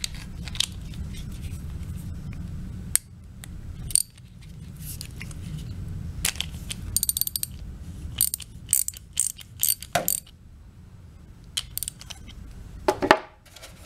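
Socket ratchet clicking in several short runs as it turns the bowl nut off a small-engine carburetor's float bowl, with a louder knock near the end.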